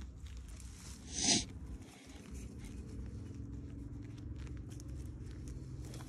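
Hands scraping and patting loose dirt around a can set into a grave mound, with one short, louder scrape or rustle about a second in. A faint steady low hum runs underneath.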